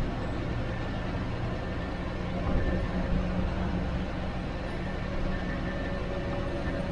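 Diesel engine of a state transport bus running steadily at cruising speed, heard from inside the driver's cab, with a constant hum, road noise and two short knocks about two and a half and three seconds in.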